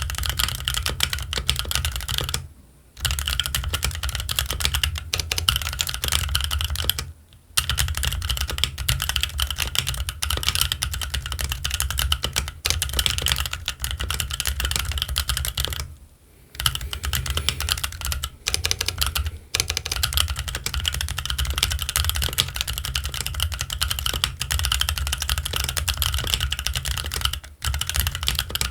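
Fast continuous typing on a Keychron Q1 mechanical keyboard with Gazzew Boba U4T tactile switches and ABS Cherry-profile keycaps: a dense stream of keystrokes broken by a few brief pauses.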